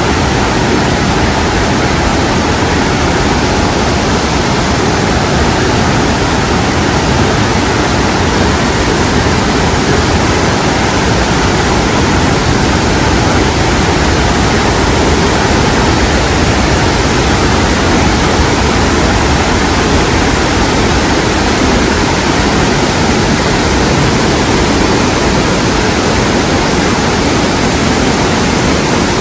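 Kaminari Falls waterfall pouring down: a loud, steady rush of falling water that does not change.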